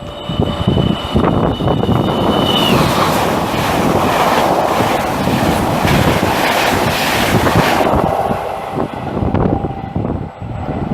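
Train passing at speed: a loud rush of wheel and rail noise, at its fullest in the middle and easing off after about eight seconds. About three seconds in, a high steady tone drops in pitch as the train goes by.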